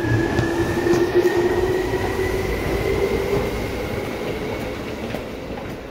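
Seibu 2000 series electric train running, with a low rumble and a whine that rises slowly in pitch. The sound fades gradually through the second half.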